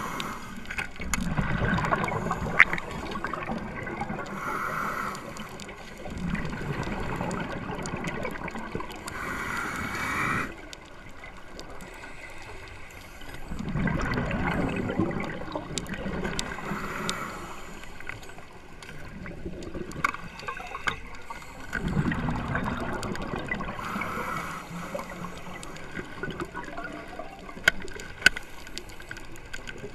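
Underwater sound of a diver breathing: exhaled bubbles rushing and gurgling past the microphone in long swells a few seconds apart, with quieter stretches between and scattered small clicks.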